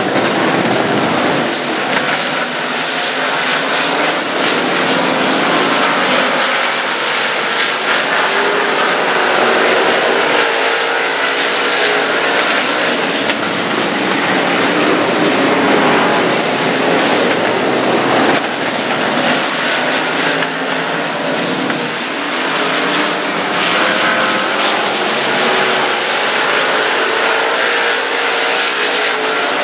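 A pack of dirt modified race cars racing at speed, their engines running hard with engine notes rising and falling as the cars pass through the turns.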